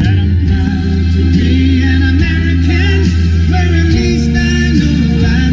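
Music: a song with singing over a steady bass line.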